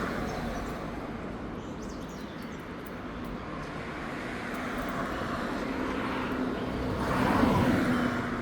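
Road traffic: a steady rush of passing vehicles. It swells near the end as one vehicle comes close, with a steady engine hum.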